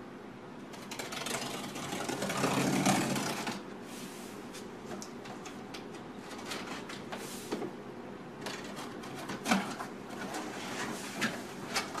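Cardboard box flaps being handled and pulled open: a stretch of scraping and rustling cardboard about a second in, then scattered light knocks and rustles as the flaps are worked.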